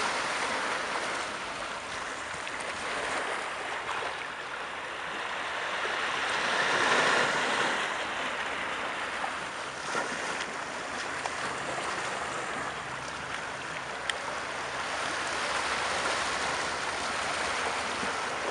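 Sea waves washing in, a steady surf hiss that swells louder as a wave breaks about seven seconds in.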